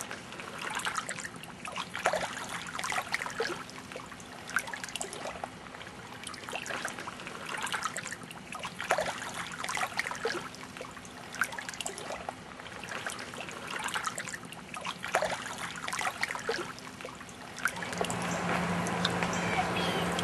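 Small lake waves lapping and splashing irregularly at the shore. A steady low hum joins near the end.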